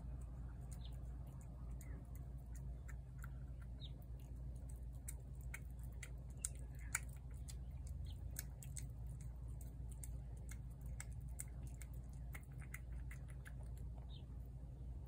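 A cat eating wet chicken pâté from a plate: a run of small wet clicks and smacks of chewing, with two sharper clicks a little past the middle, over a steady low hum.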